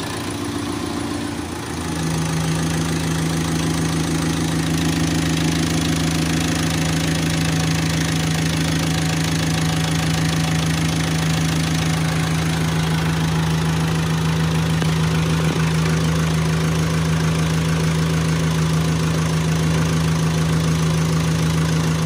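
Mahindra Jeep diesel engine idling steadily at constant speed, its steady hum growing stronger about two seconds in.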